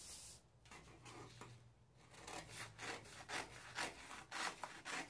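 Scissors cutting brown pattern paper in a run of short snips, about three a second, beginning about two seconds in. A brief rustle of the paper being handled comes at the start.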